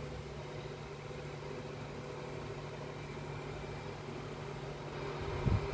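Steady low machine hum from a running motor, with a few low thumps and knocks near the end.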